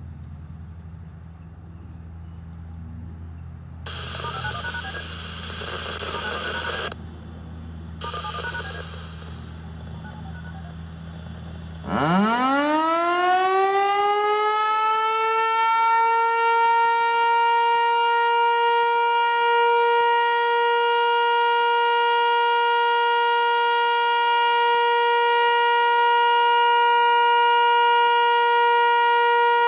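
Federal Signal Eclipse 8 tornado siren winding up quickly about twelve seconds in, then holding one steady, loud tone: the Alert signal. Before it there is a low steady hum, broken by two short bursts of electronic tones, one at about four seconds and one at about eight.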